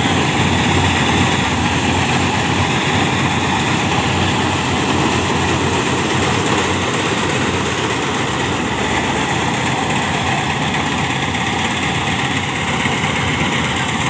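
Malkit combine harvester running steadily while cutting a rice crop, giving constant engine and machinery noise.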